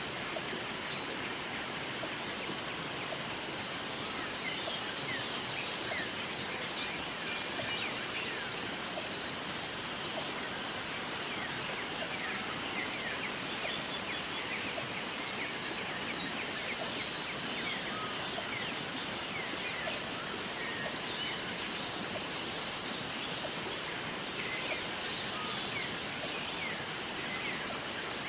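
Jungle ambience: a steady rush of water under many short bird chirps, with a high, even buzzing call about two seconds long that repeats roughly every five and a half seconds.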